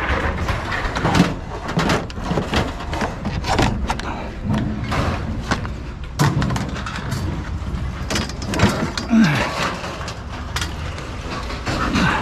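Scrap metal being handled and set down: an irregular run of clanks and knocks over a steady low rumble.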